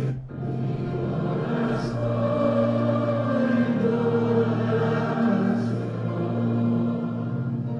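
Background music of sustained choir-like voices holding long chords over a low drone, with a slow melody line gliding above.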